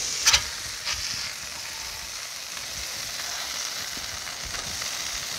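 Patty melt frying in oil on a Blackstone steel griddle top, a steady sizzle. A steel spatula clacks and scrapes on the griddle plate twice, sharply about a third of a second in and more lightly just under a second in.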